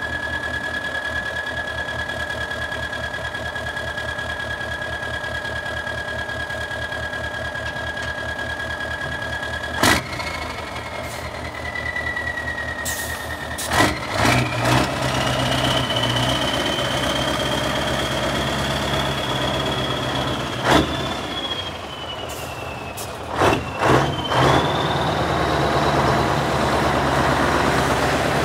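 Scania R142 truck's V8 diesel engine running, with a thin steady whistle over the idle for the first ten seconds. Then a sharp knock, and the engine runs louder with a whine that rises and falls, broken by several more short sharp knocks or hisses.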